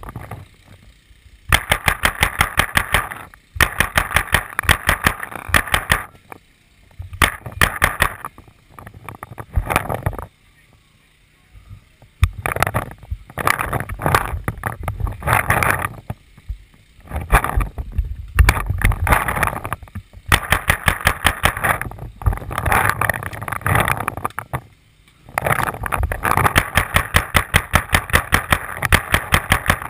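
Paintball marker firing rapid strings of shots, evenly spaced pops in repeated bursts of one to four seconds with short pauses between.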